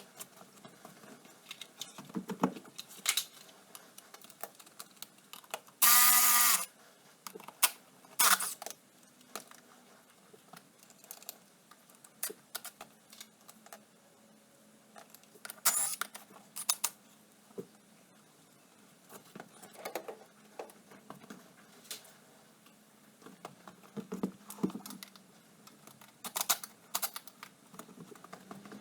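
Irregular clinks and clatters of hand tools and small metal parts being worked and set down while an ATV is taken apart, with a short, loud pitched buzz about six seconds in.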